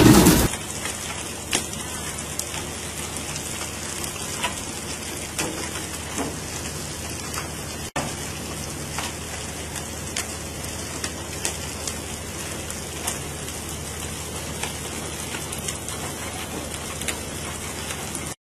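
Steady rushing noise of wind and sea water aboard a tuna fishing boat, with scattered light taps.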